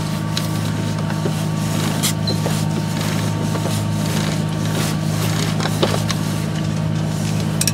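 A sailing yacht's inboard diesel engine running steadily, a low even hum, with a few scattered sharp clicks as a reef line is hauled tight at the cockpit winch.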